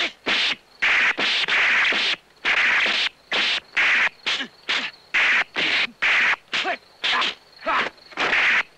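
Kung fu film fight sound effects: a rapid series of swishing swipes and slapping hits as blows are traded and blocked, two or three a second.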